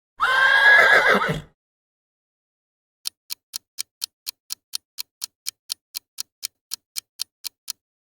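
A horse neighing once, a wavering whinny lasting just over a second. From about three seconds in, a clock ticks steadily, about four ticks a second, for nearly five seconds.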